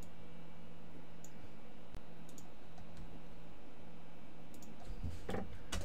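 A few faint, scattered clicks of computer keyboard keys over a steady low electrical hum.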